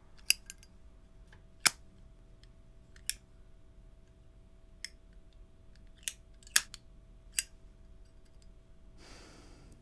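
Cigarette lighter being flicked over and over: sharp single clicks at uneven gaps of about a second, over a faint steady hum, with a soft hiss near the end.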